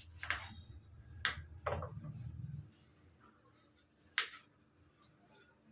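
Scattered sharp knocks and clicks of kitchen utensils being handled, about five in all, the loudest about four seconds in, over a low rumble that stops about two and a half seconds in.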